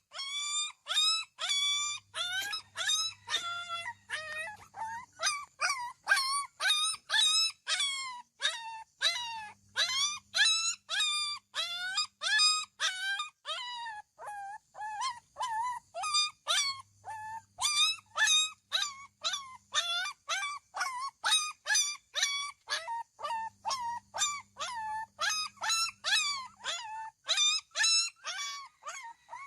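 A dog barking non-stop in short, high-pitched yaps, about two a second.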